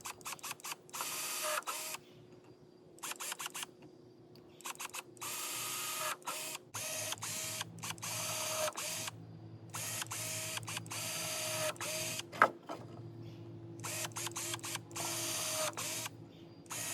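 A cordless power drill or driver run in many short trigger bursts, each ending with a brief motor whine as it winds down, as when driving screws. A low steady hum runs under it from about halfway through.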